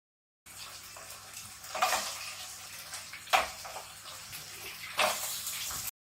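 Water running from a kitchen tap in a steady hiss, with louder splashes about two seconds in and near the end, and a sharp knock in between. The sound starts and cuts off abruptly.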